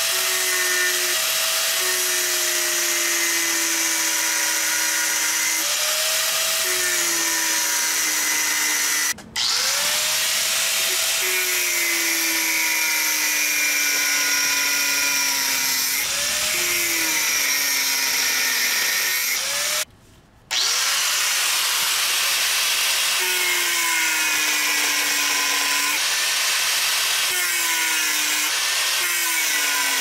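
Angle grinder with a cut-off disc cutting into the steel shell of an LG reciprocating refrigerator compressor, opening the casing at its seam. The motor whine sags in pitch again and again as the disc bites into the steel and recovers between passes, breaking off briefly twice.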